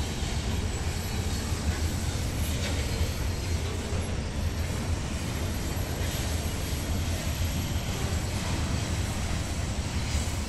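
Freight train's covered hopper cars rolling past, a steady low rumble of steel wheels on rail.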